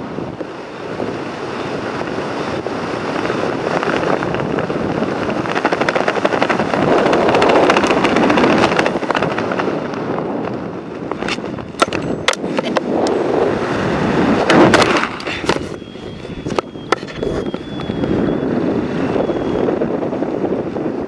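Wind rushing over a parachutist's camera microphone during canopy flight, as a steady loud buffeting that swells and eases. A run of sharp clicks and knocks comes about halfway through.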